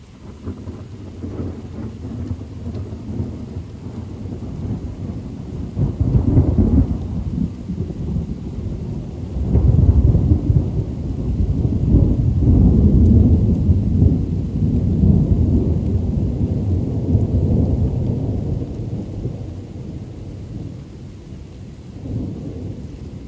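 Thunder rumbling long and low over steady rain. It swells to a first peak about six seconds in, then rumbles louder and longer from about ten seconds and slowly fades, with a smaller rumble near the end.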